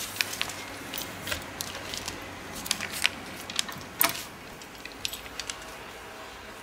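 Handling noises: a run of sharp clicks and light rattles from things being carried and moved about, the loudest about four seconds in.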